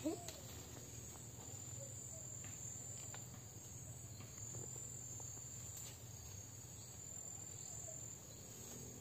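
Steady, faint, high-pitched chirring of insects in the undergrowth, with a few faint clicks from the brush.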